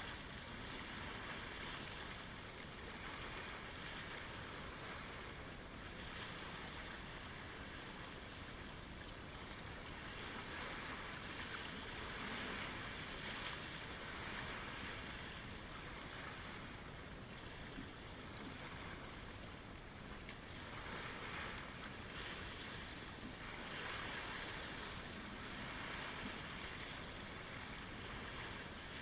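Small Lake Ontario waves washing in, swelling and easing every few seconds over a steady low rumble.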